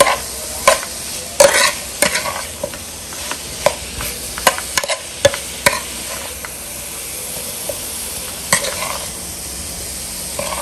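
Mushroom masala sizzling in a kadai while a metal spatula stirs it, scraping and clicking against the pan. The clicks come often in the first half and thin out after about six seconds, leaving a steady sizzle.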